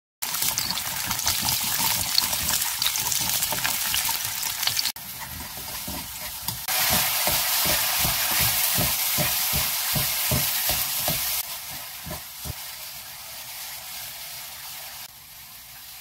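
Garlic cloves sizzling in hot oil in a nonstick wok as they are stirred. Then small dried anchovies are stir-fried with the garlic: a steady sizzle with quick repeated scrapes and knocks against the pan, about three a second.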